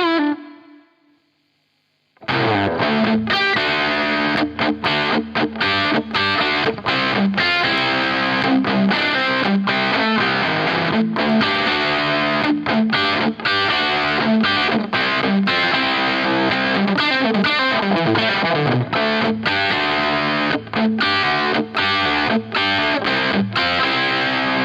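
Electric guitar (Gibson Nighthawk) through a Dunlop FFM1 Silicon Fuzz Face Mini fuzz pedal into a Marshall Super Lead amp, played with heavy fuzz. A ringing note dies away at the start, and after a short silence a busy riff of quick picked notes starts about two seconds in and carries on.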